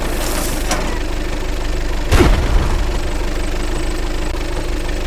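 A vehicle engine running steadily at idle, with one heavy thud about two seconds in.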